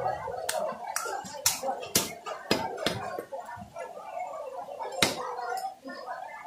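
Butcher's cleaver chopping goat meat on a wooden log chopping block: a run of sharp chops about half a second apart, a pause, then one more loud chop about five seconds in.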